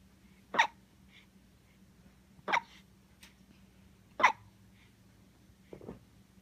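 Hiccups: three sharp, loud hiccups roughly two seconds apart, then a softer one near the end.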